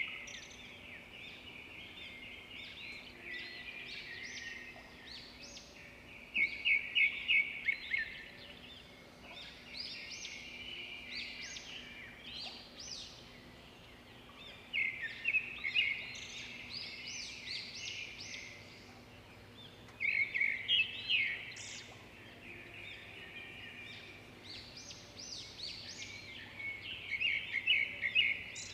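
Birdsong: loud, rapid phrases of chirps come about every six to seven seconds, with softer calls in between, over a faint steady background noise.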